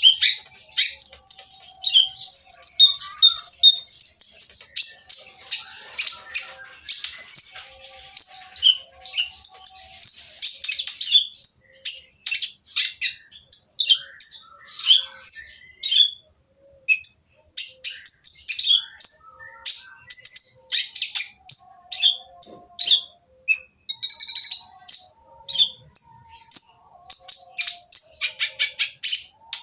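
A kolibri ninja (konin) sunbird singing noisily: a dense, unbroken run of rapid high-pitched chirps, trills and harsh twitters.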